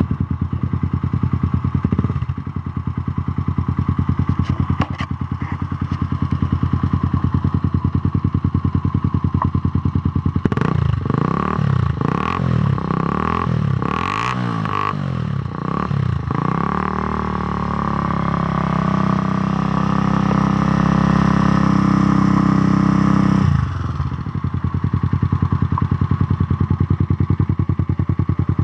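Kawasaki D-Tracker 250's single-cylinder four-stroke engine breathing through a Yoshimura-style slip-on exhaust with its baffle (dB killer) removed, giving a deep exhaust note. It idles steadily, is blipped several times about ten seconds in, then is held at higher revs for about six seconds before dropping sharply back to idle.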